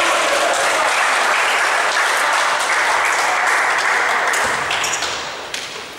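Spectators applauding and cheering a goal, a dense wash of noise that fades away near the end.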